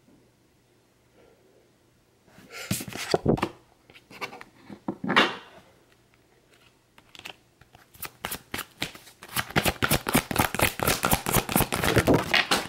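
A deck of oracle cards being shuffled by hand. A few scattered flicks and slides come first, then a long run of rapid card clicks through the last four seconds or so.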